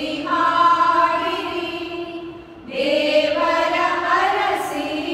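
A group of women singing a prayer song together, holding long notes, with a brief pause about two and a half seconds in.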